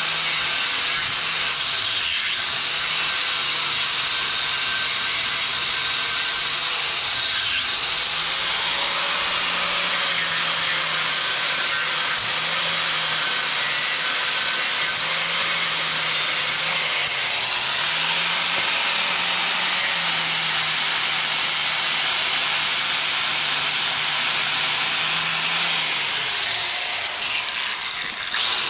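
Electric angle grinder with a sanding disc grinding a thick steel chain link flat: a steady motor hum under a loud grinding hiss, the motor note dipping briefly several times.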